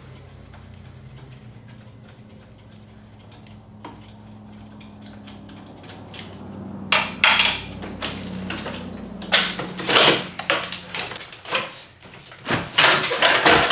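A steady low hum, then from about halfway in a run of irregular metallic clicks and clanks of tools and parts being handled as a car is taken apart.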